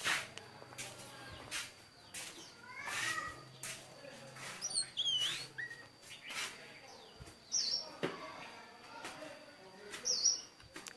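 Small birds giving short high chirps, three of them sliding down in pitch, with scattered sharp clicks and knocks throughout.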